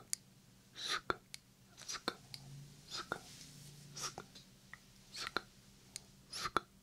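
Whispered 'sk-sk' mouth sounds made close into a 3Dio binaural microphone: a short hiss ending in a sharp click, about once a second, seven times over.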